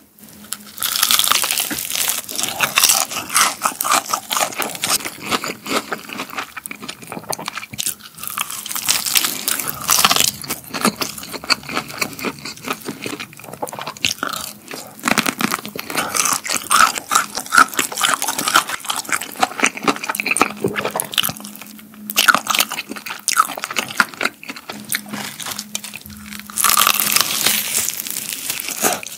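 Close-miked biting and chewing of crispy battered fried chicken: the crust crackles and crunches in a dense, irregular stream of bites, with a few short lulls.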